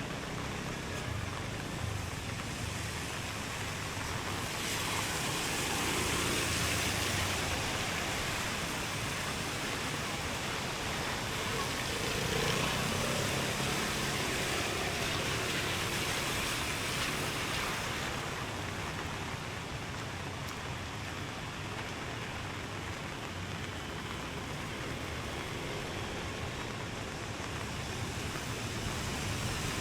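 Rain and traffic on wet streets: a steady hiss, with a louder stretch of hiss from about five to eighteen seconds in.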